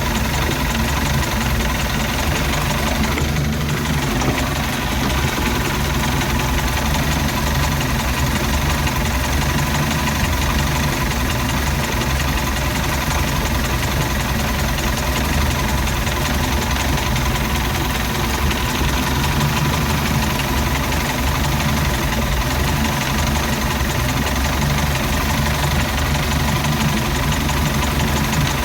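MerCruiser 3.0 four-cylinder sterndrive engine idling rough, running steadily throughout.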